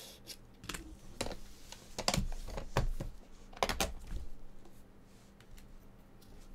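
Aluminium Panini Flawless card briefcase being handled and opened: a series of sharp metallic clicks and knocks from its latches and shell, strongest in the first four seconds, then only light ticks as the lid is lifted.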